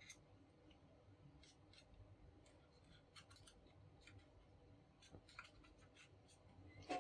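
Near silence with a few faint, scattered small clicks and ticks.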